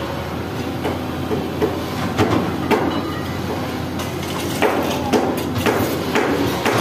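A string of about a dozen irregular sharp knocks of steel on steel, in the manner of hammer blows on the bucket's pins and linkage during an excavator bucket change, over the steady idle of the Hitachi EX200's diesel engine.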